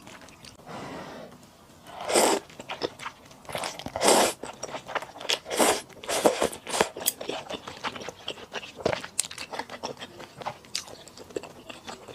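Close-miked eating of malatang with thick rice noodles: a steady run of wet chewing clicks, broken by several louder crunchy bites.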